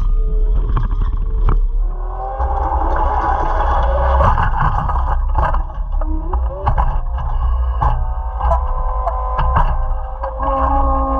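Caterpillar 256C skid steer's diesel engine running steadily under load, with a higher whine joining about two seconds in and scattered clanks from the rock grapple as it works into snow.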